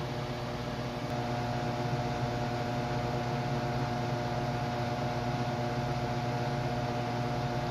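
Bakon BK701D hot air rework handle running with its blower on a very low air flow setting while reflowing solder at 300 °C: a steady hum made of several fixed tones over a soft, even rush of air.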